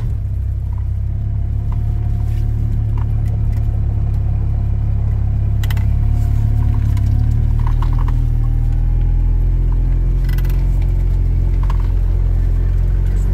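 Oka microcar's small engine running steadily, heard from inside the cabin as the car drives through deep fresh snow, with its note rising slowly under load. Two short knocks come about 6 and 10 seconds in.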